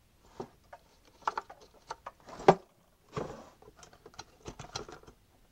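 Small tools and objects clicking and clattering on a workbench as hands rummage through them in search of a straight edge, with one sharper knock about two and a half seconds in.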